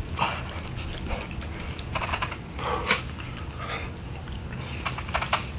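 A man's short, breathy exhales, a few over several seconds, as he strains through the last push-ups of a set.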